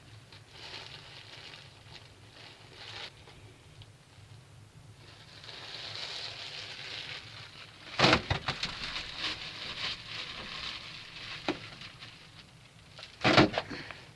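Rustling and handling noises with a run of sharp knocks and clicks about eight seconds in and a louder knock cluster near the end, over a faint steady low hum.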